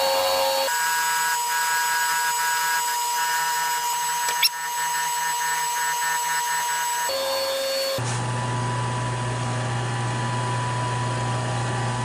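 Lathe running a cloth buffing wheel while a resin pen barrel is buffed against it: a steady machine hum, with a single sharp click about four and a half seconds in.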